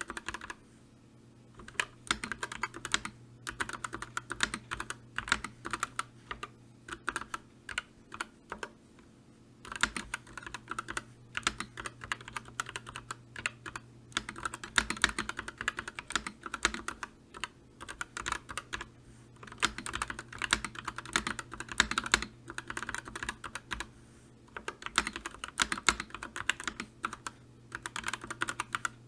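Typing on a computer keyboard: rapid key clicks in runs of several seconds, broken by short pauses.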